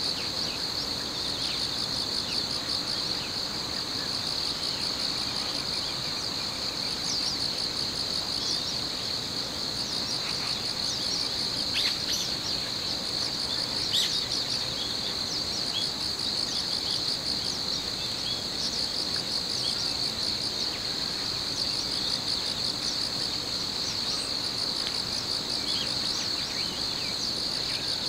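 Chorus of crickets and other insects: a steady high trill with a fainter pulsing trill above it, and a couple of sharper chirps about halfway through.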